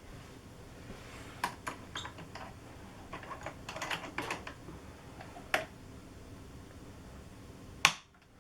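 Handling noise of an electric grand piano's lid and casing being put back: a few sharp knocks and a quick run of light clicks and taps in the middle, with no notes played.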